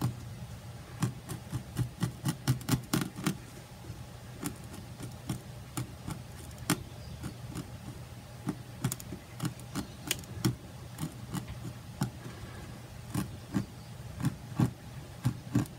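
Fine-tip pen tapping and scratching in short sketching strokes on linen laid over the plastic top of an Artograph LightTracer light box: a string of small irregular ticks, a few a second, over a steady low hum.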